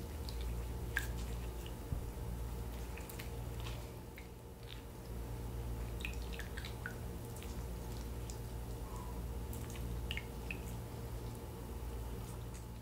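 Lime juice dripping into a jug of juice as limes are squeezed in a hand-held metal citrus squeezer. Scattered short drips and small clicks sound over a steady low hum.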